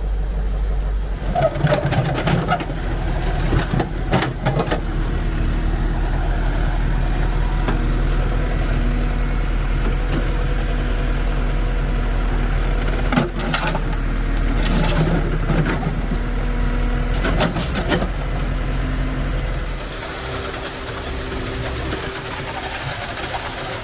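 Dump truck's engine running while the load of excavated material is tipped out, with several clunks and knocks along the way. The low engine drone falls away about twenty seconds in.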